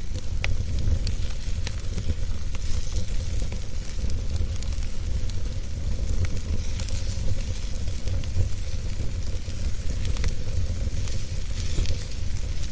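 Wood fire burning in a fire pit: a steady low rumble and hiss with scattered sharp crackles and pops.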